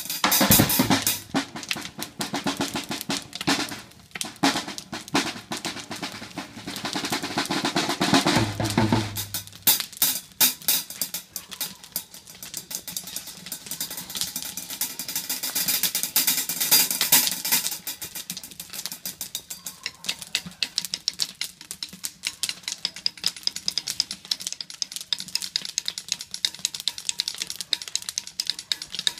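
Live band music recorded in the room, driven by a drum kit played fast and hard with snare, bass drum and cymbals. About nine seconds in, the deeper, fuller part of the sound stops, leaving mostly rapid drumming and cymbals.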